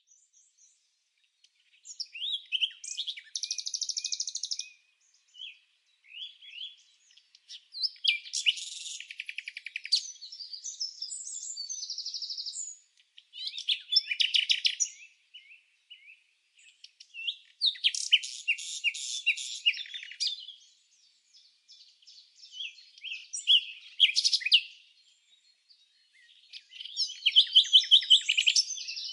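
Songbird chirping and trilling in bouts of rapid high notes, a phrase of two to three seconds every few seconds with quiet pauses between.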